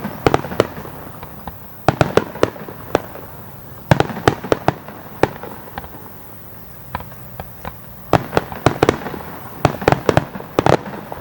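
Fireworks bursting overhead: clusters of sharp bangs, one cluster every second or two, over a steady rumbling haze.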